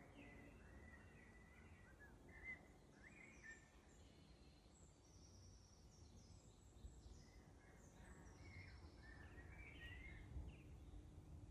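Several forest songbirds singing faintly in short, separate phrases, some lower and some high-pitched, over a low background rumble.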